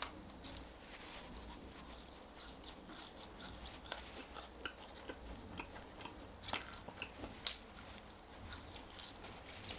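Close-miked chewing and biting of french fries: irregular crisp crunches and mouth clicks, with a few louder bites.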